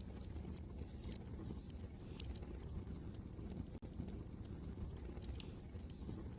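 Wood fire crackling with irregular sharp pops and snaps, over a steady low rumble of wind.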